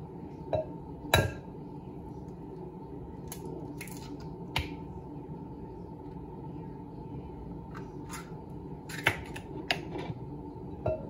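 Eggs being cracked into a blender jar: sharp taps of eggshell against a hard edge, the loudest about a second in, then the shell being pulled apart and small knocks against the jar, with more taps near the end.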